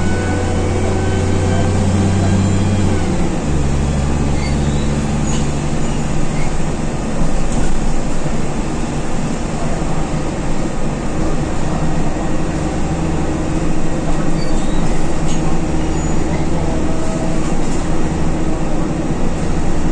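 Alexander Dennis Dart single-deck bus heard from inside the passenger cabin, its engine pulling under load with a rising drivetrain whine. About three seconds in the engine note drops with a gear change, and the bus then runs steadily at speed with road noise.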